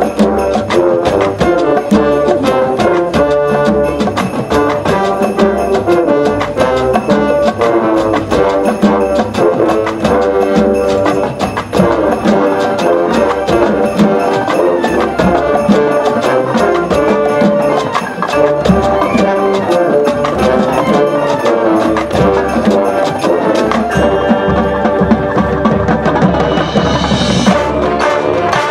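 High school marching band playing its competition show: brass and winds carry the music over frequent drum and percussion strokes.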